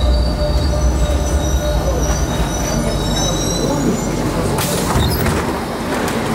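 Metro train running on the rails, with a low rumble that eases after the first second or two and thin high squealing from the wheels. A short burst of hiss comes about four and a half seconds in.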